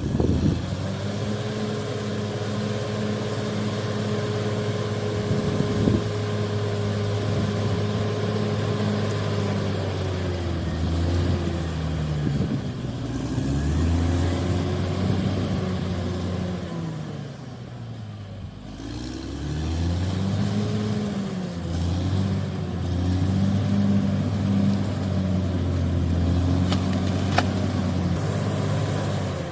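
Heavy diesel engine of earth-moving machinery running with a high whine over it. The engine holds a steady speed at first, then drops and climbs in pitch several times as it is revved down and up.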